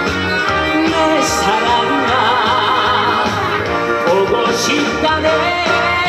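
A male singer sings live into a microphone over a loud amplified band backing track, his held notes wavering with vibrato.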